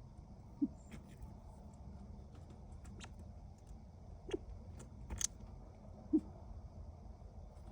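California quail giving soft, short, low hoots, three in all, spaced a few seconds apart, with scattered light clicks and ticks between them.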